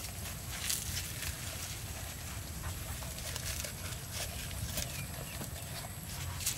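Hands handling raw whole chickens and pushing green stalks into their cavities, giving soft rustles and a few light clicks over a steady low rumble.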